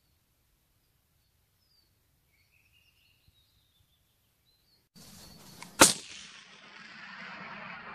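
Faint bird chirps in near silence, then a steady hiss comes in and a single loud shot from a suppressed Blaser R8 rifle in 6.5 Creedmoor cracks out, its echo fading over the next couple of seconds.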